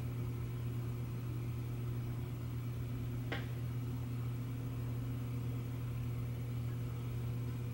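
Steady low electrical hum, with one faint click about three seconds in.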